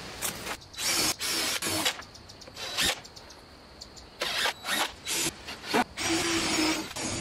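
DeWalt 20V cordless driver driving screws into 2x4 wall framing, in a series of short bursts, each lasting a fraction of a second to under a second.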